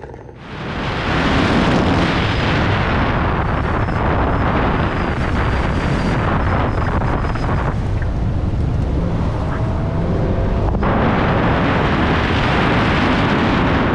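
Loud wind buffeting on a car-mounted camera's microphone during a timed autocross run, over the low rumble of the Mercedes C63 AMG's V8 under hard driving. The rush starts about half a second in, eases for a few seconds and comes back abruptly near eleven seconds.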